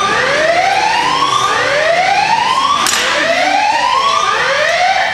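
Siren-like rising whoops, four in a row, each sweeping upward in pitch for a second or so before the next begins. A sharp click comes about three seconds in.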